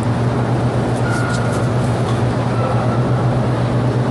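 Steady low hum over a dense, even wash of room noise, with a few faint rustles about a second in.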